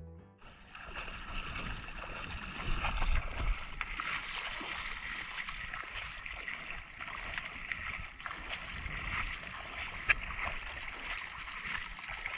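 Sea water moving around a GoPro camera in its underwater housing while snorkeling: a steady rushing hiss with many small crackles and clicks.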